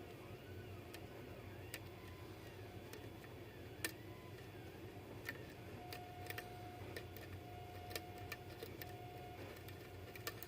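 Faint, irregular small clicks of a lock pick and tension wrench working the pins inside a pin-tumbler lock during single-pin picking.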